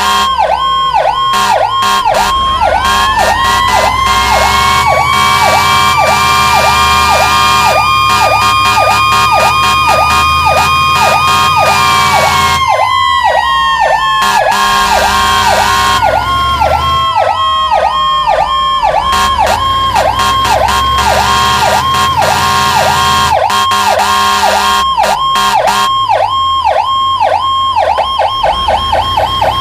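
Fire truck's electronic siren yelping in fast, even up-and-down cycles, switching to a quicker cycle near the end. A second siren joins it: it winds up about two seconds in, holds one high pitch, and winds slowly down from about twelve seconds in.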